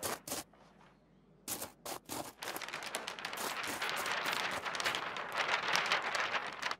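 A large sheet of stiff paper crackling and rustling as it is rolled up around a tube: a few sharp clicks at first, then a dense, continuous crackle from about two seconds in that cuts off abruptly at the end.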